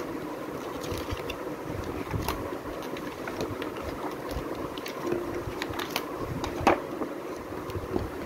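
Picture books being handled in a cardboard box: a lift-the-flap page flipped and the book shut and moved, with small scattered clicks and a louder tap about two-thirds of the way through, over a steady background hum.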